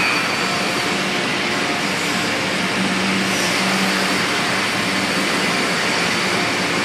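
Steady hiss and hum of machinery on a steel fabrication shop floor, with the steel-plate cutting table running, at a constant level with a few faint steady whines mixed in.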